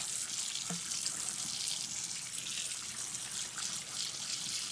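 Water from a kitchen tap running steadily onto canned chickpeas in a plastic colander and splashing into a stainless steel sink, rinsing the beans.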